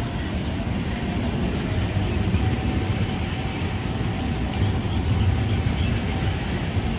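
Express train coaches rolling past a platform: a steady low rumble of wheels on the rails.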